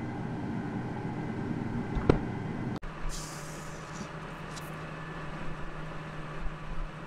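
Case IH combine running steadily, heard from inside the cab while its unloading auger empties peas into a grain cart, with a sharp click about two seconds in. After an abrupt cut, a lower, steady engine hum with a brief hiss just after the change.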